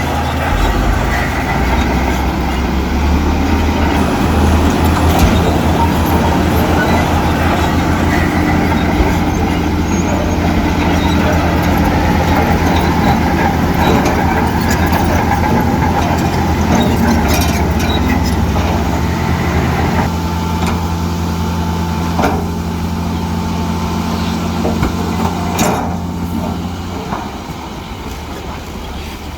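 Heavy construction machine's diesel engine running steadily under load, with a few sharp metallic clanks. The engine note drops about twenty seconds in and settles lower near the end.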